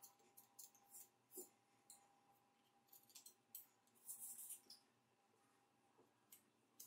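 Faint, short scrapes and clicks of a small putty knife spreading acrylic filler over a joint in a polystyrene baseboard. The strokes are busiest about three to four and a half seconds in.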